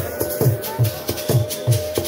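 Church music: a drum beats steadily a little over twice a second, with rattles on top and a long held note.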